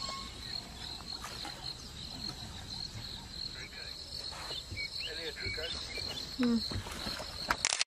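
Insects chirring steadily at a high pitch, with a slight pulsing. Faint voice-like sounds come in the second half, and a sharp click sounds just before the end.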